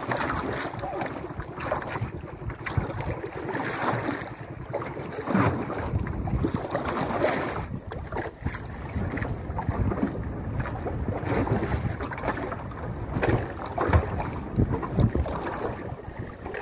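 Wind buffeting the microphone over water lapping against the hull of a small outrigger fishing boat at sea, with irregular knocks and gusts throughout.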